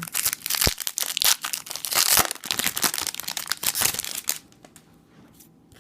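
A Topps trading-card pack's wrapper being torn open and crinkled by hand: dense, irregular crackling and ripping that stops about four and a half seconds in.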